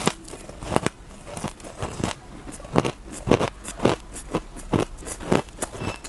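Close-miked chewing and biting of powdery shaved ice: an irregular run of crisp crunches, about two a second.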